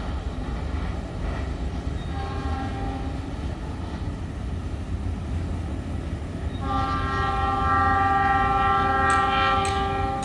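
Approaching train's locomotive horn: a short blast about two seconds in, then a long, loud multi-tone blast from about two-thirds of the way through, over the steady low rumble of the oncoming train.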